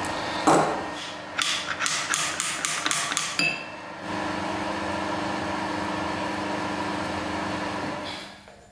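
Sharp metallic clicks and taps from hand tools working the cam-chain tensioner on a homemade four-stroke engine: one knock, then a quick run of clicks about four a second for two seconds.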